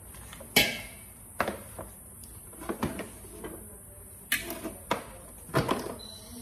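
Unpacking noises: a cardboard box and a boxed non-stick pan with its glass lid are handled and set about on a countertop, giving about six short knocks and scrapes, the sharpest about half a second in.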